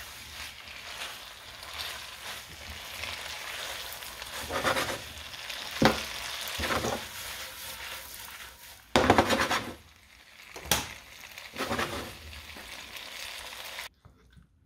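Spaghetti with shrimp and cherry tomatoes sizzling in a frying pan as it is stirred and tossed with a utensil, a steady hiss with several louder stirring strokes in the second half. The sound cuts off near the end.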